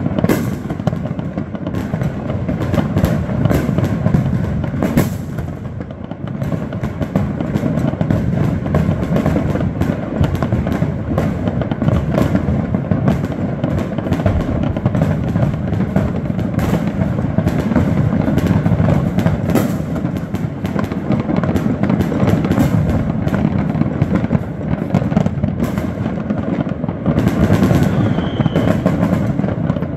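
New Year fireworks going off in a dense, unbroken barrage: many overlapping bangs and crackles that blend into a continuous rumble.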